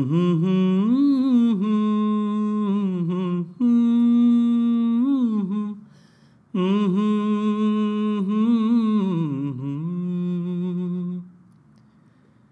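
A man's voice humming a wordless, unaccompanied melody in three phrases of long held notes that bend and turn in pitch, falling silent about a second before the end.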